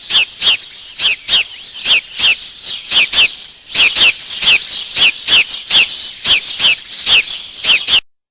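A bird calling with short, sharp downslurred chirps, repeated about three times a second over a steady high background hiss. The recording cuts off abruptly near the end.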